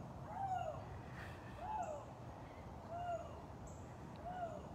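Canada lynx hooing: four short, soft hoots about a second and a quarter apart, each rising and falling in pitch.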